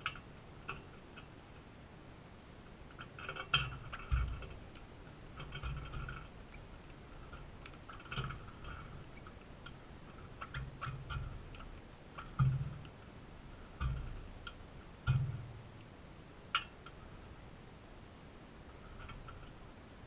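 Crimson rosella cracking and husking sunflower seeds at a feeder bowl: scattered sharp clicks and crunches, with a few short low thumps.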